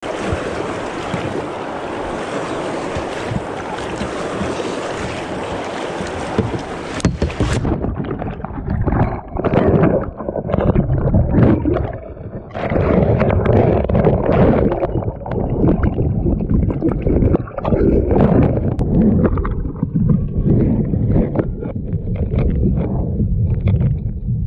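Fast river water rushing around a kayak, with wind on the microphone. About seven and a half seconds in the sound suddenly goes dull and muffled as the microphone plunges under water, followed by churning, gurgling underwater turbulence in uneven surges.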